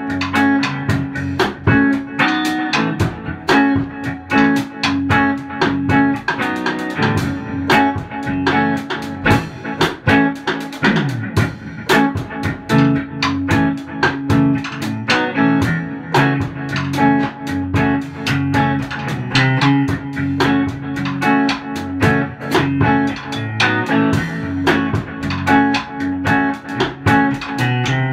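Electric guitar, a Fender Stratocaster played through a Fender Princeton Reverb amp, jamming with a drum kit over a steady beat.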